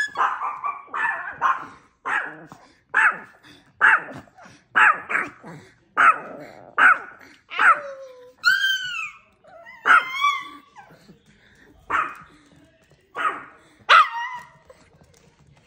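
Chihuahuas barking in sharp, high barks, about one a second, with a couple of longer rising-and-falling yelping calls around the middle.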